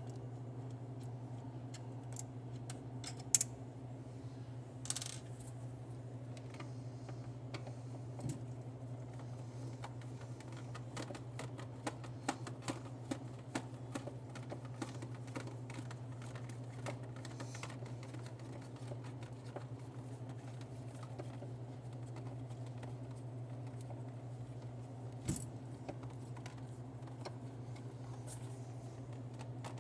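Screwdriver and hand tools clicking and tapping at irregular intervals while the screws that hold the prize-wheel reel are taken out, with two sharper knocks, one about 3 seconds in and one near the end. A steady low hum runs underneath.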